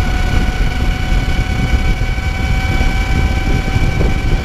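2009 Zero MX electric motorcycle under way at speed, geared with a 22-tooth sprocket: a steady high whine from the electric motor and chain drive, over loud wind rumble on the microphone.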